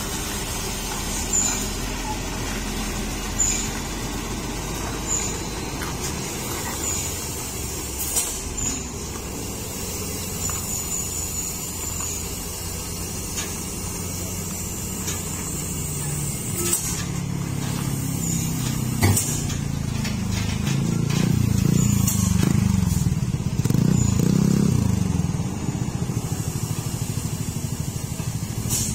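Diesel engine of a heavy Hino Ranger tractor unit running under load as it hauls a loaded lowbed trailer slowly round a steep hairpin, growing louder about two-thirds of the way through and easing near the end. A few short air-brake hisses break in.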